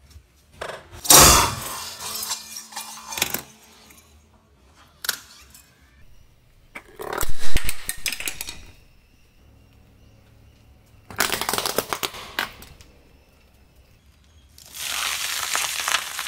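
A car tyre rolling over and crushing one object after another on concrete, each a burst of cracking and crunching with short silences between: pink plastic mugs cracking apart about a second in, sharp snaps in the middle, and green chillies squashing near the end.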